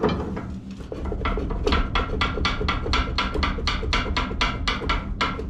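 Homemade rebar grate being shaken in a steel wood stove's firebox, knocking and rattling in a quick rhythm of about five knocks a second that starts about a second in. The shaking knocks the ash down through the grate.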